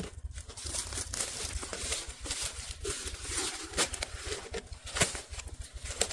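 Dry brush and branches rustling and crackling as they are dragged and piled, with a sharp snap of a twig about five seconds in.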